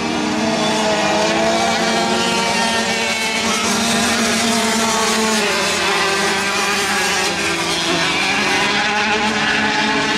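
A pack of small 65cc and 85cc two-stroke dirt-bike engines racing together, several overlapping engine notes rising and falling in pitch as the riders rev down the straights and back off for the turns.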